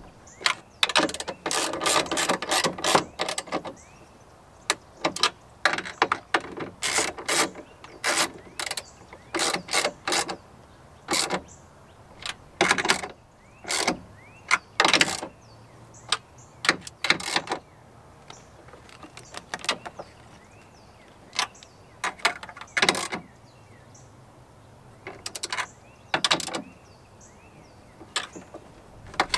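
A 3/8-inch-drive ratchet with a socket on an extension clicking in bursts of quick clicks as it runs the mirror's mounting nuts down snug. The clicking is busiest in the first few seconds, then comes in scattered short runs with pauses between.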